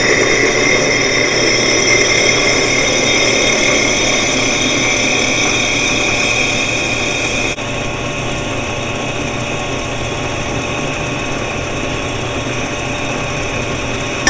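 Ryobi drill press running steadily, its Milwaukee glass drill bit grinding a hole through a plate, with a constant high whine. About halfway through, the highest part of the whine drops away.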